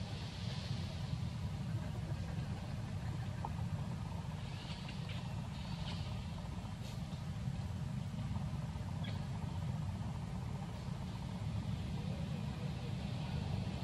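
Steady low background rumble, with a few faint high chirps near the middle.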